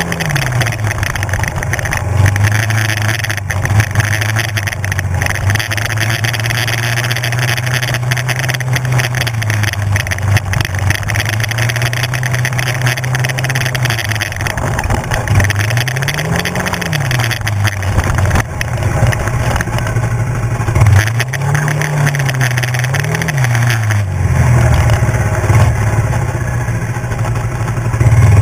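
A 250 cc sport quad's engine running at a steady pace, its revs rising and falling briefly a few times in the second half. Wind and tyre noise run under it.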